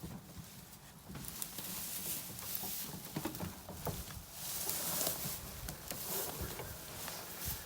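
Footsteps of someone walking on rough ground, with irregular small knocks and rustles.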